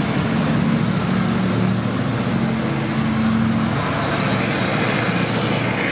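Road traffic: a motor vehicle's low, steady engine hum under a constant hiss, the hum fading away over the last couple of seconds.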